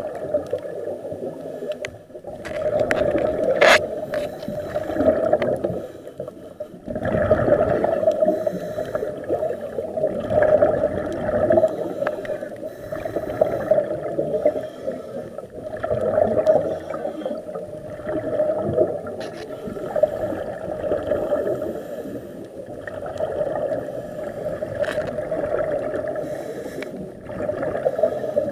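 Scuba divers' regulator breathing heard underwater: exhaled air bubbling and gurgling out in surges that swell and ease every three or four seconds, one per breath. A sharp click sounds about four seconds in.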